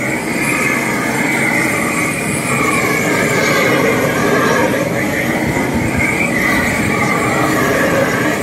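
Propane roofing torch running steadily, a continuous loud roar as it heats and melts the underside of a bitumen membrane roll being laid.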